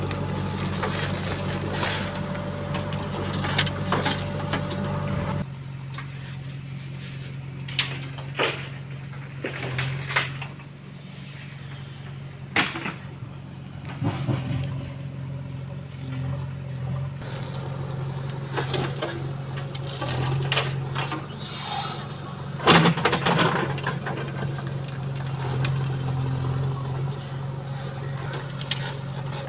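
Diesel engines of a JCB 3DX backhoe loader and a tractor running steadily as soil is loaded. The engine note drops abruptly about five seconds in, and sharp metallic clanks and knocks come every few seconds, the loudest about 23 seconds in.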